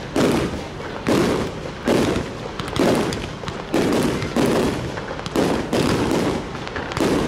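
Bolognese-style fireworks battery: aerial shells going off in a steady rhythm, a loud bang a little under every second, each trailing off before the next.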